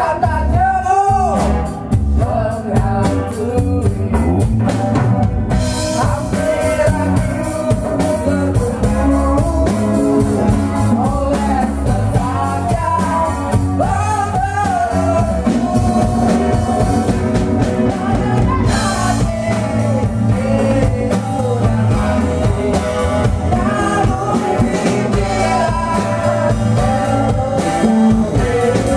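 Live band music: singing over strummed acoustic guitar, electric bass and a djembe-style hand drum.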